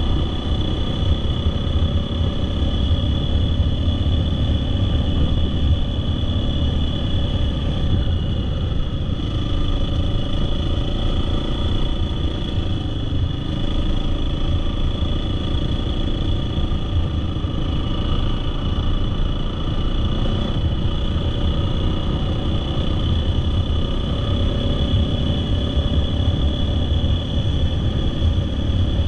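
Husqvarna dirt bike engine running at a steady cruise, heard from the bike itself, with a low rumble underneath.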